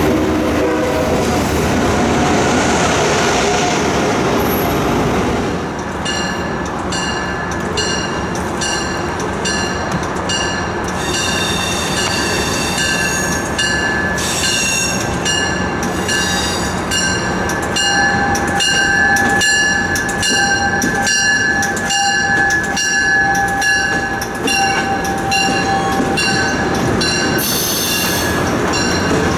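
Passenger trains rolling through a station: an Amtrak Acela passing, then a MARC electric locomotive with bilevel coaches. From a few seconds in, a bell rings steadily about twice a second until near the end, over a thin steady whine in the middle.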